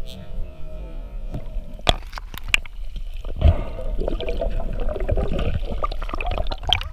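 Underwater water noise and gurgling, with sharp clicks and knocks about two seconds in, a louder knock a second later, and another click near the end, as the speared mutton snapper and the spear shaft and line are handled by hand.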